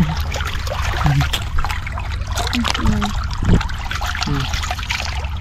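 Muddy water pouring out of a pipe and trickling steadily over rocks in a shallow channel, with a few short low sounds breaking in now and then.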